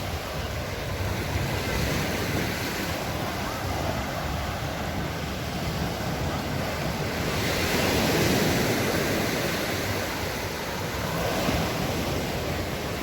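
Sea waves washing onto a sandy beach, rising to a louder surge of surf about eight seconds in, with wind buffeting the microphone.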